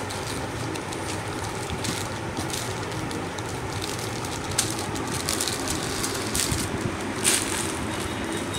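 Clear plastic packets of earrings crinkling and crackling as they are handled, over a steady background noise, with a couple of sharper crackles about four and a half and seven seconds in.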